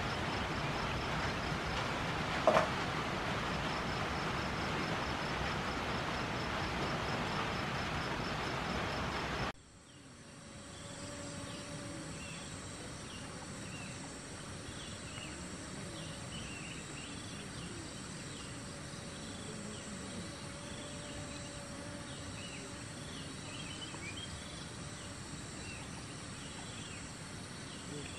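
Forest insect ambience. At first a steady hiss carries a faint pulsing insect call. About nine seconds in the sound drops abruptly to a quieter bed of steady high-pitched insect drones with short scattered chirps.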